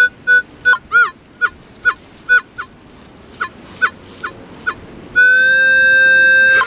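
Minelab CTX 3030 metal detector sounding off over a strong target: a run of short high beeps, some dipping in pitch, about two or three a second as the coil sweeps, then one steady high tone held for about a second and a half near the end.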